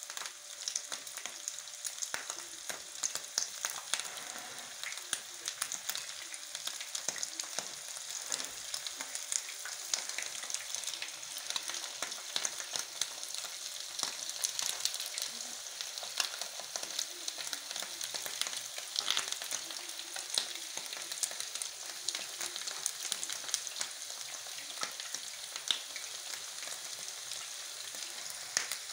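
Meatballs frying in hot oil in a frying pan: a steady sizzle with many small crackles and pops.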